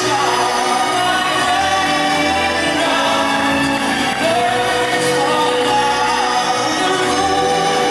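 A slow pop ballad performed live: a female voice singing long held notes over a band arrangement, with backing vocals.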